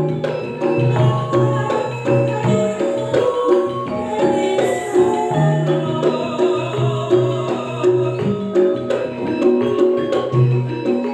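Campursari music: gamelan-style metallophones and drums play a steady rhythm over low held bass notes.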